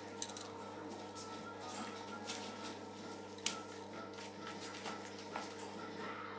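Young puppies moving about, with soft scattered rustles and clicks and one sharper click about halfway through, over a steady electrical hum.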